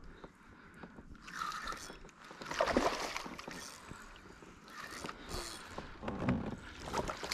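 Hooked striped bass splashing and thrashing in the water at the side of the boat while being brought to the net, in irregular bursts; the loudest comes about two and a half seconds in.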